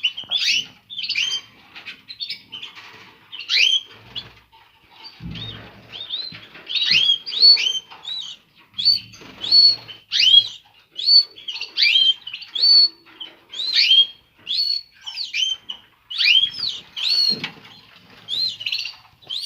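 Caged canaries calling with short, repeated up-and-down chirps, about two a second, coming thicker in the second half. A few soft low thumps sound among the calls.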